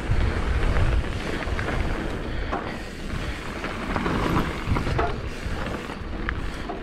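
Wind buffeting the microphone during a mountain bike ride: a steady rushing noise with a heavy low rumble.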